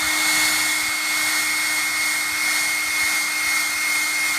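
Handheld hair dryer running steadily, a rush of air with a steady whine on top, as it blow-dries WD-40 sprayed on a decal on a chrome truck bumper.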